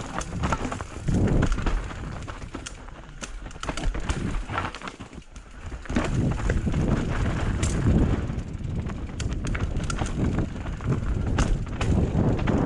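Mountain bike descending a rough dirt and rock trail, the bike running without a chain: tyres crunching over stones and roots, with the frame and suspension clattering on the hits. It goes quieter for a couple of seconds midway, then the clatter picks up again.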